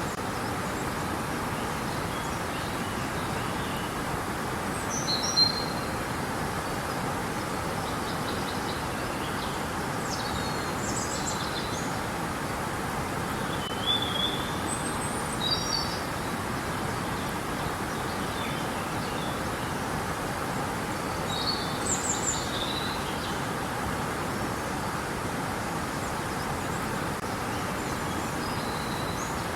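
River water rushing steadily, with birds chirping a few short calls now and then over it.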